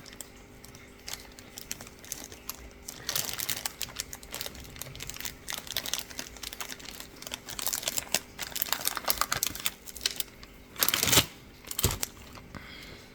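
Small metal lock parts being handled: a key drawn out of a disassembled pin-tumbler cylinder and its pins picked over, giving runs of light clicks, scrapes and rattles, with two louder knocks near the end.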